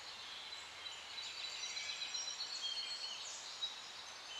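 Faint outdoor nature ambience: a low hiss with many small, high-pitched bird chirps and calls.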